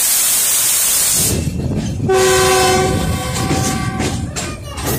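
Locomotive horn sounding one blast about two seconds in, lasting about a second, over the running noise of the train. A loud rushing hiss fills the first second, and near the end the wheels click over the points as the train crosses onto another track.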